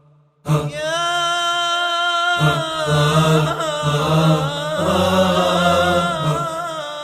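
Music: a held, wavering chant-like voice over a low steady drone, starting about half a second in.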